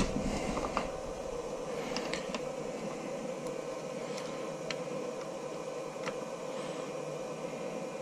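Steady workshop hum, with a few faint, light clicks of a hand screwdriver and small screw as the screw is threaded into a new microswitch on a Tesla Model S door handle assembly.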